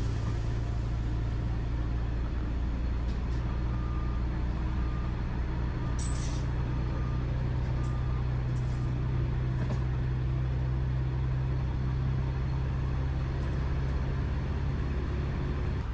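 Diesel locomotive engine running steadily as the train travels along the track, a low drone that rises a little about six seconds in, with a few short high squeaks about six and nine seconds in.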